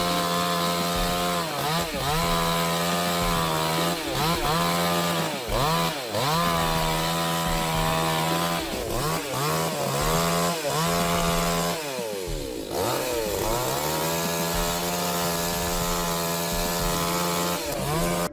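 Two-stroke chainsaw running at full throttle in a cut. Its pitch sags and recovers again and again as the chain loads in the wood, with one longer drop about two-thirds of the way through.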